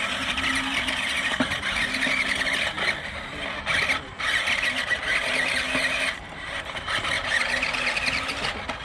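JJRC Q137 8x8 RC skid-steer truck's electric drive motors and gearboxes whining, high-pitched, under throttle. The whine drops out briefly a couple of times, around four seconds in and again near six seconds, as the throttle is let off.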